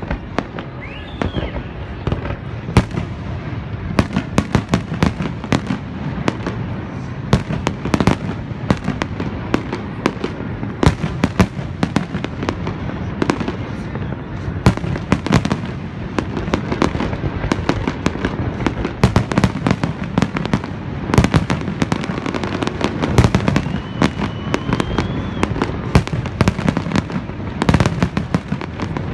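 Fireworks display exploding in dense, rapid succession: many sharp cracks and bangs over a continuous low rumble.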